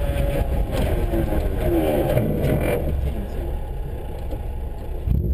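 Subaru rally car's flat-four engine accelerating along a gravel road, heard from inside the cabin: the revs climb over the first few seconds, then ease, over a steady low road rumble.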